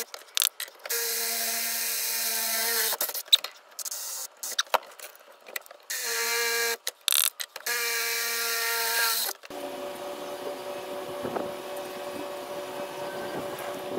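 Handheld drill boring holes through a steel bracket clamped in a bench vise, running in bursts of one to two seconds, each with a motor whine that drops a little as it lets off. Sharp metallic clicks come between the bursts. Near the end it gives way to a quieter steady background hum.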